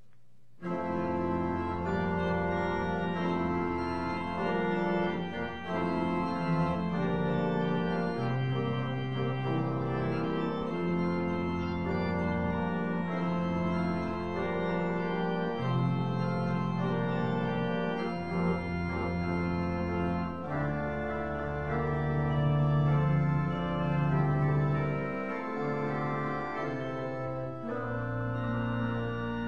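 Church organ playing the postlude after the benediction: full sustained chords over a bass line that moves every few seconds, starting about half a second in.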